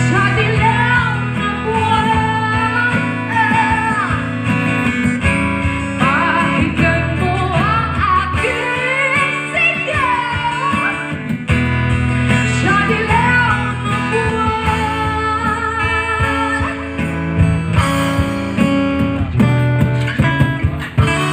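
Woman singing with vibrato into a microphone, accompanied by a strummed acoustic guitar. Her singing drops out near the end while the guitar plays on.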